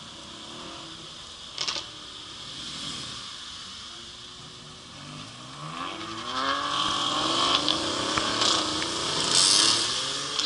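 Car engines running and revving, growing louder about six seconds in, with their pitch rising and falling.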